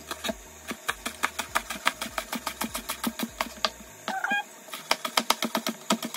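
Chef's knife chopping spring onions on a cutting board: a rapid, even run of sharp taps as the blade hits the board.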